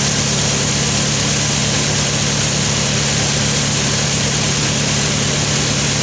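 Sawmill machinery running steadily: a constant low hum with a high hiss, unchanging throughout.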